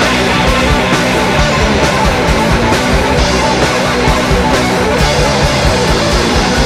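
Loud, dense punk rock: electric guitars and drums played hard and fast.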